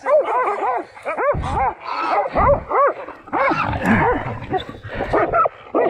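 Hunting dogs barking in quick succession at a caught hog, a few short rising-and-falling barks a second, with a couple of low scuffling thumps in between.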